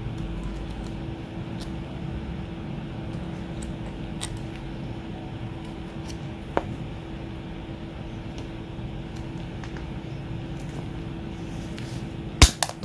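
Hand pliers' bolt-cutter jaws shearing through 2.5 mm stainless steel 304 wire: a few faint clicks, then near the end one sharp loud snap as the wire parts, with a brief ringing rattle after. A steady hum runs underneath.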